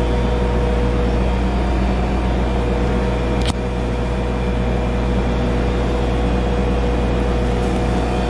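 Steady hum of pizza-shop kitchen machinery, the exhaust hood and oven fans, with a low drone and a held mid-pitched tone running through it. A single click comes about three and a half seconds in.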